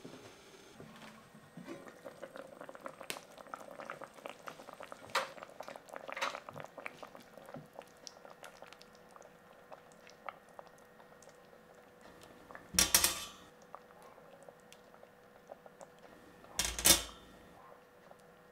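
Braising liquid simmering in an enamelled cast-iron pot, with many small bubbling pops. Metal tongs then knock loudly against the pot twice, near the end.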